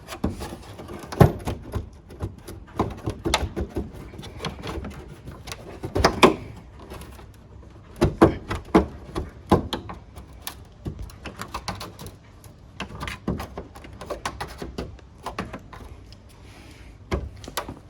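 Irregular clicks and knocks of a flathead screwdriver prying plastic trim clips loose around a wheel arch, with several sharper knocks along the way.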